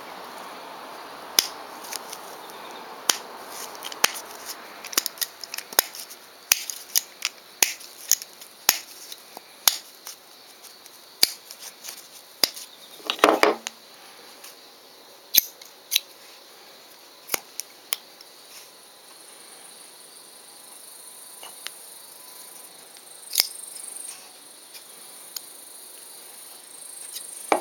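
Higonokami folding knife's steel blade swung open and shut in its brass handle, giving a string of short, sharp metal clicks, with a brief louder scrape about halfway through.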